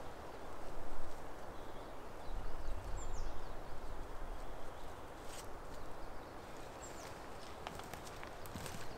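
Quiet forest ambience with a few short, high, falling bird chirps, a brief louder rustle about a second in and a low rumble a little after two seconds.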